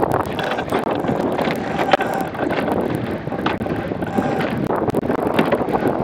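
Wind buffeting the microphone of an action camera mounted on an A-class catamaran, over water rushing along the hull, with a few brief clicks.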